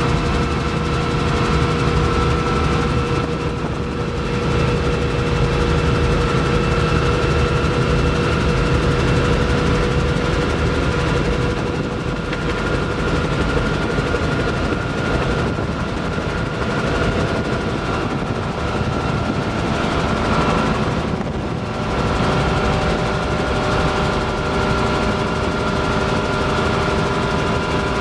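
Bell 47 helicopter's piston engine and rotor running steadily in cruise flight, heard from inside the cockpit: a loud, even drone with several steady tones over it.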